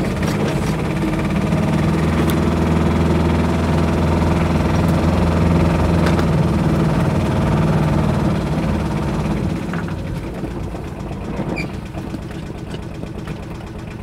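Aixam Mega Multitruck van's small 400cc Kubota two-cylinder diesel engine running under load as the van pulls away, heard close up from the cab. It is loud and steady for most of the time, then quietens about ten seconds in.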